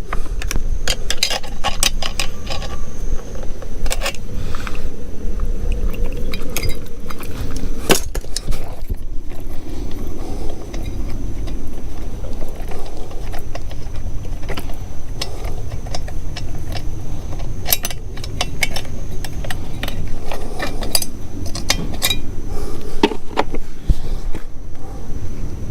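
Tools and small metal parts clinking and clattering irregularly as small two-stroke lawn equipment is reassembled by hand, over a steady low background rumble.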